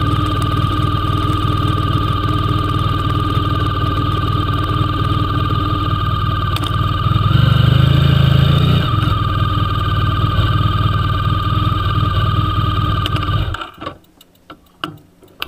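Motorcycle engine idling steadily, with a strong low hum and a constant whine. It swells briefly about halfway through, then cuts off suddenly near the end, leaving only faint clicks.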